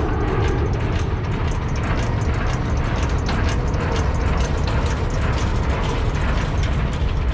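Semi-trailer landing gear being cranked by hand, its crank and gearbox clicking in a regular rhythm, a few clicks a second, over the steady low rumble of the truck's engine running.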